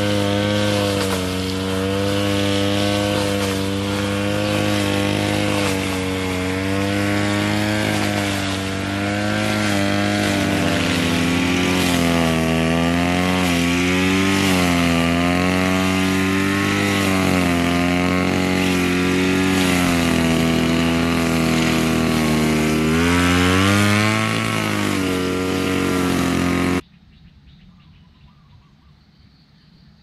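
Petrol brush cutter's small engine running hard, its pitch dipping and rising under load as it cuts tall fodder grass. It stops abruptly near the end.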